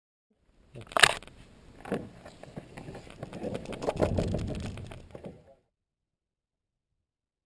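Two sharp knocks about a second apart, then a few seconds of low rumbling noise on the microphone of a camera mounted on a glider wing, which cuts off abruptly.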